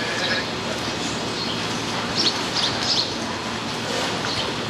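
Steady background noise of an indoor arena, with a few short, high chirps, clustered a little over two seconds in.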